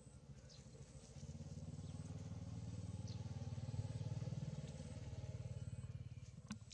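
An engine passing by: a low, steady engine note that grows louder from about a second in, peaks midway and fades again near the end. A sharp click comes just before the end.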